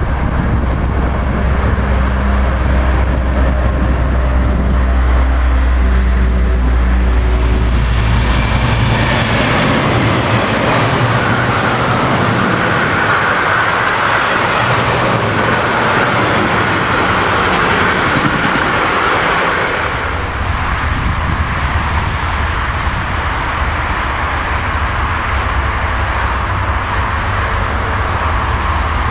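An electric freight locomotive hums steadily as it approaches. From about eight seconds in, a long train of car-carrier wagons rolls past close by with loud wheel and rail noise. At about twenty seconds the sound changes suddenly to the low rumble of a second electric freight train approaching.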